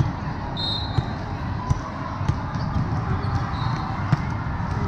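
Busy volleyball hall: a steady din of voices with volleyballs being struck and bouncing. There is a short high referee's whistle about half a second in, and several sharp ball smacks, the loudest near the end as a serve is struck.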